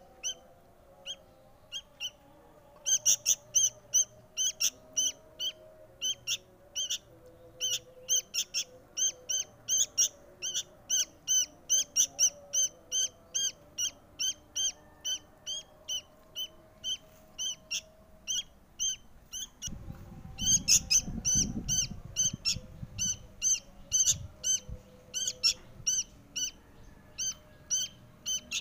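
Sooty-headed bulbul fledgling begging to be fed: a long run of short, high chirps, two to three a second, sparse at first and then steady. A brief low rumble about twenty seconds in.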